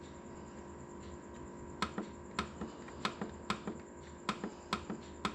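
Buttons on an IFB dishwasher's control panel being pressed repeatedly, about ten short sharp clicks starting about two seconds in, as the programme is stepped through to 'Daily'.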